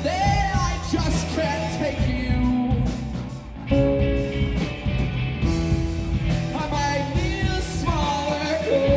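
Live alternative rock band playing with vocals over electric guitar, bass guitar, keyboard and drums. The band drops back briefly about three and a half seconds in, then comes back in loud.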